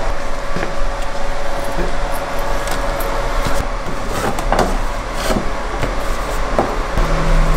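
Steady mechanical hum with a constant mid-pitched tone, over which come a handful of sharp clicks and rustles as a paper jewellery box and envelope are handled.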